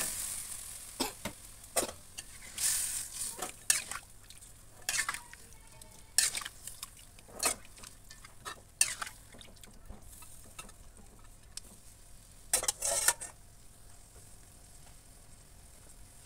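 Metal spatula stirring chicken feet and spice paste in a wok: irregular scraping and knocking strokes over a light sizzle of oil and broth. The strokes stop a few seconds before the end, leaving only the sizzle.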